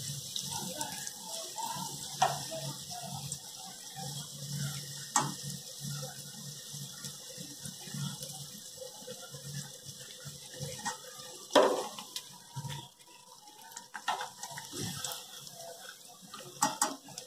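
Spring rolls deep-frying in hot oil in a steel kadai: steady sizzling and crackling. A few sharp knocks come as the metal skimmer touches the pan.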